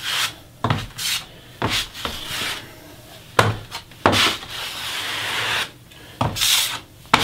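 A 3 mm notched steel trowel scraping wood floor adhesive across a wooden subfloor in repeated sweeping strokes, about one a second, each starting with a sharp scrape, with one longer, steadier sweep midway.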